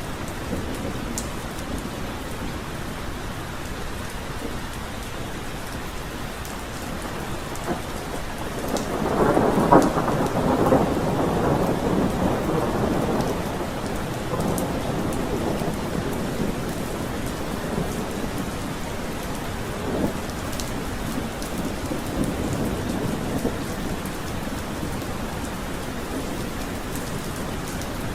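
Steady rain falling, with a long roll of thunder that builds about a third of the way in, peaks, and fades away over several seconds. A second, fainter rumble of thunder comes past the two-thirds mark.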